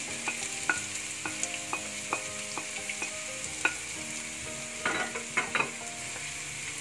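Chopped shallots and red chilli sizzling in hot oil in a nonstick wok, with a wooden spatula tapping and scraping against the pan as it stirs; a quick run of scrapes comes about five seconds in.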